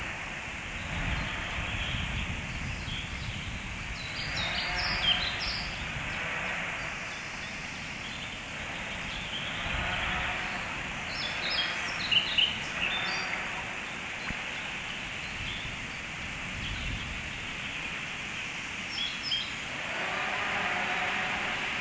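Chainsaws running, their engine note swelling and easing several times over a steady background hiss. Short bursts of small-bird chirping break in three times.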